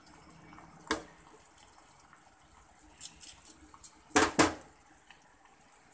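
Metal tongs clinking and scraping against a frying pan while stirring beef and vegetables in sauce: one sharp clink about a second in, a few light taps around three seconds, and a louder clatter a little after four seconds.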